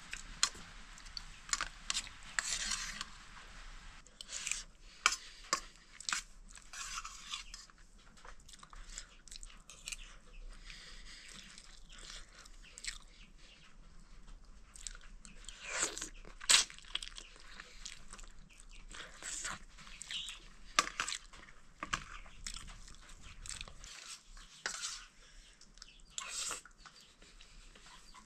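A person eating rice and toad curry with a spoon, chewing close to the microphone, with scattered sharp clicks of the spoon against a steel plate.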